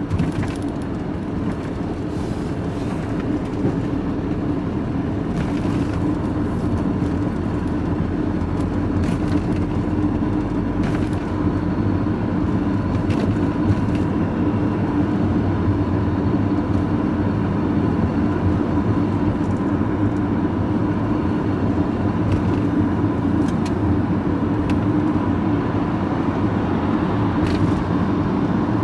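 Vehicle engine and road noise heard from inside the cab while driving: a steady, unchanging drone with a low engine hum.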